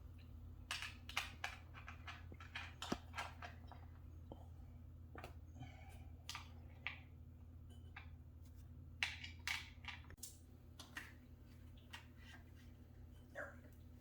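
Scattered, irregular light clicks and knocks of exercise-bike parts being handled and fitted during assembly, over a steady low hum.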